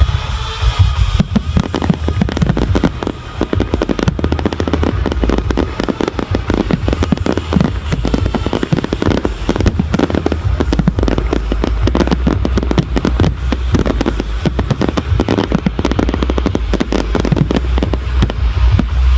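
Fireworks barrage: a dense, rapid run of bangs and crackles, many per second, with a steady low rumble beneath.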